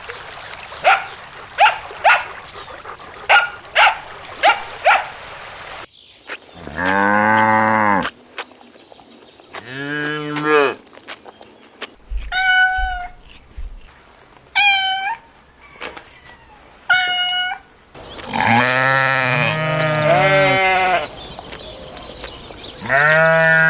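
Farm animals bleating in a run of short clips that change about every six seconds: quick high calls, then long drawn-out lower bleats about a second each, then short high bleats, then several animals bleating over each other.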